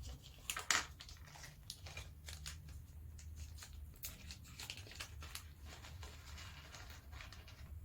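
Hands sorting through small plastic model-kit parts and bags: a run of light clicks and crinkling, with two sharper clicks about half a second in.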